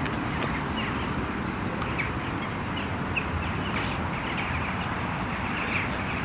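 Birds calling: short calls scattered through, over a steady outdoor background noise.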